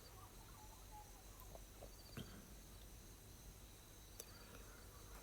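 Near silence: faint outdoor ambience with a few short, faint high chirps and a couple of soft clicks.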